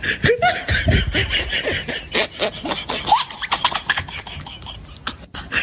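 Kittens mewing in many short, high calls that rise and fall, over steady rustling and scratching clicks.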